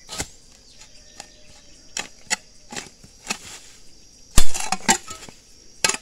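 Metal hoe blade chopping into weedy soil: a series of short, irregular chops and scrapes, the loudest a heavy thud about four and a half seconds in.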